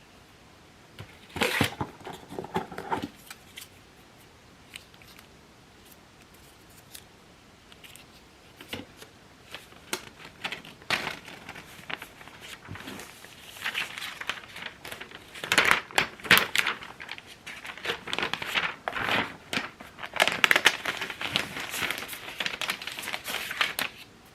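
Unboxing packaging being handled, with crinkling and tearing of wrapping. A burst comes about a second in, scattered clicks follow, and denser rustling runs through the second half.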